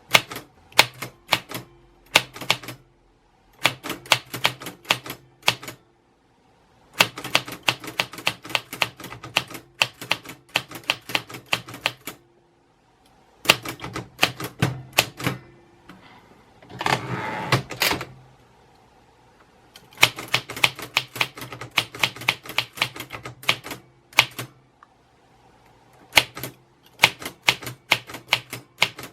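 Typewriter keys being struck in quick runs of clicks, with short pauses between the runs and one longer rasping sound near the middle.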